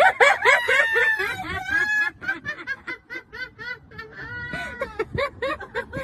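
A flock of gulls calling, many short overlapping calls one after another, easing off briefly about halfway through before picking up again.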